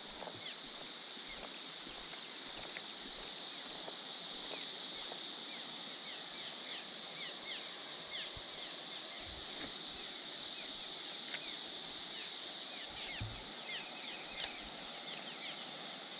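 Steady high-pitched droning chorus of a 17-year periodical cicada hatch, with many short falling chirps over it.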